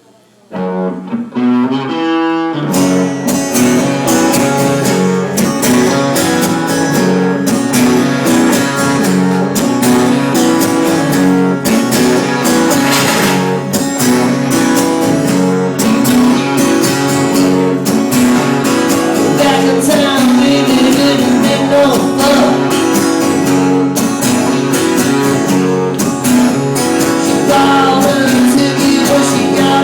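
Live performance of a guitar blues song: a few picked guitar notes open it, then the full strummed accompaniment comes in about three seconds in and carries on steadily.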